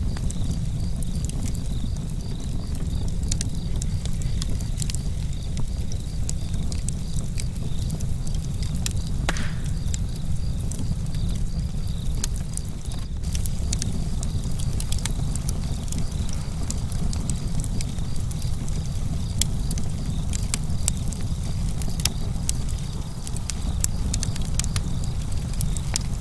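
Outdoor campfire crackling with frequent sharp snaps and pops over a steady low rumble, while crickets chirp in a continuous high pulsing trill.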